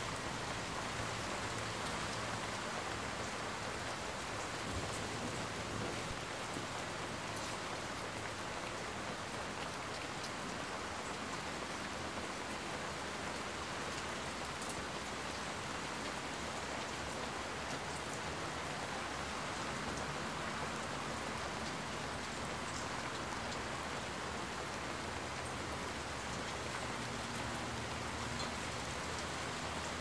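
Steady rain falling, a dense, even patter with a sharper drop tick now and then.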